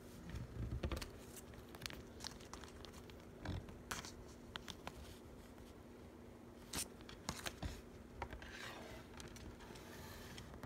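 Packaging crinkling and rustling as it is handled, in short irregular bursts with small clicks and taps.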